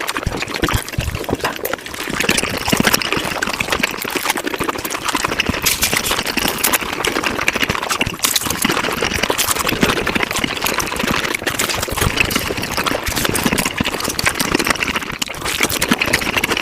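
Close-miked mukbang eating sounds, chewing and other mouth noises, played back at five times normal speed. They form a dense, continuous stream of rapid clicks.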